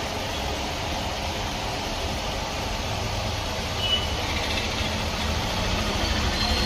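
Steady low rumbling background noise, like an engine running, with a brief high-pitched tone about four seconds in.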